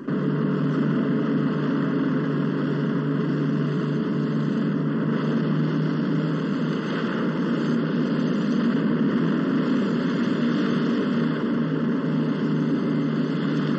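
Motorboat engine running steadily under way, a low hum with a hiss over it, cutting in suddenly at the start.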